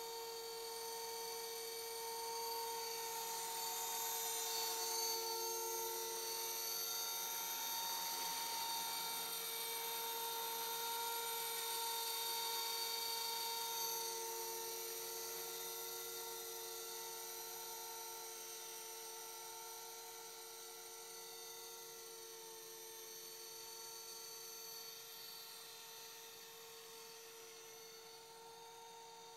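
Align T-Rex 450 electric radio-controlled helicopter flying, its brushless motor, gears and rotor giving a steady high whine. It grows louder over the first few seconds and fades slowly through the second half.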